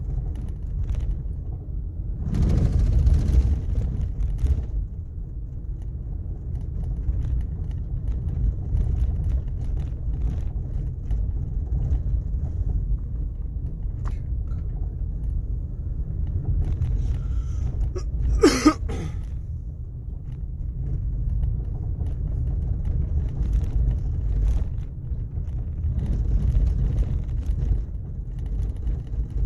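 Car driving on a sand-dusted desert road: a steady low rumble of engine and tyres. A brief sharp noise stands out about two-thirds of the way through.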